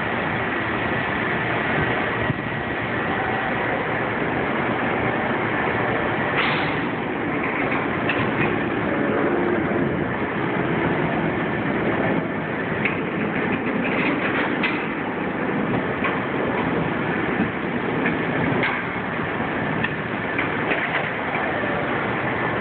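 Forklift running, a steady engine and machinery noise with a few sharp knocks.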